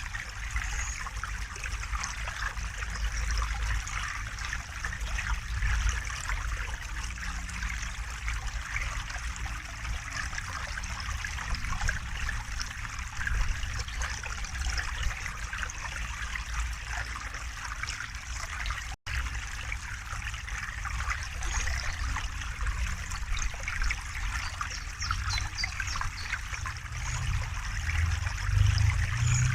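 River water flowing and trickling steadily, with a low rumble underneath. A split-second drop-out about two-thirds of the way through.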